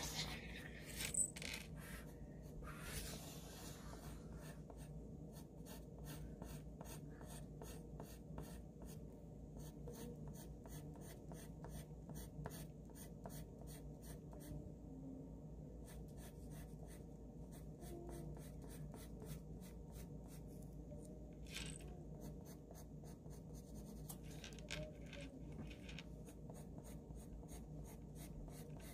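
Graphite pencil scratching on paper in quick, repeated short strokes as a drawing is outlined and shaded. It is faint, with a steady low hum underneath.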